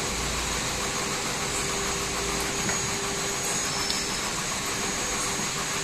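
Steady machine noise with a faint constant hum, holding even throughout.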